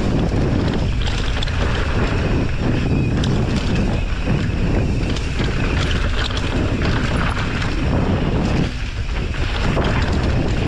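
Heavy wind buffeting on the microphone during a mountain-bike ride down a trail, with scattered knocks and rattles from the ride over rough ground.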